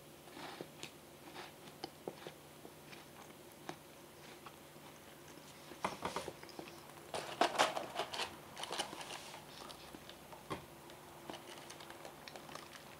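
A person chewing a Meiji Porte, a bite-size chocolate sweet with a crisp cookie base: quiet crunching and mouth sounds, with a louder stretch of crunching about six to nine seconds in.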